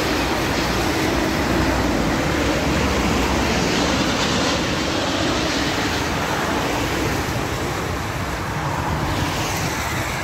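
Jet airliner on final approach passing low overhead, a steady roar from its engines, mixed with traffic running on a busy road below.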